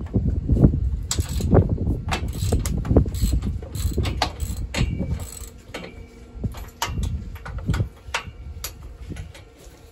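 Hand tools on a bolt in a utility vehicle's steel frame: a ratchet wrench clicking and metal tapping and clanking in an irregular run of sharp clicks, thick over the first few seconds and sparser toward the end.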